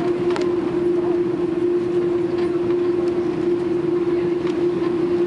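Airbus A300 cabin noise during the landing rollout on a wet runway: a steady roar from the engines and the rolling gear, with a strong steady hum and a few faint knocks and rattles.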